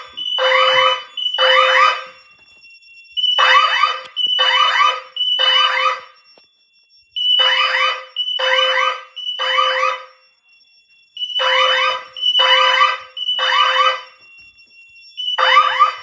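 Security system fire alarm sounding through its wall keypads in the three-pulse temporal pattern: three loud beeps, a pause of about a second and a half, then again, repeating about every four seconds. This three-pulse pattern is the standard fire evacuation signal.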